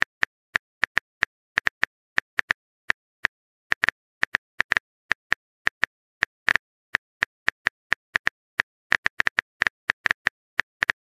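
Phone keyboard typing sound effect: a run of short, sharp key clicks at an uneven pace, about three or four a second, as the next chat message is typed out.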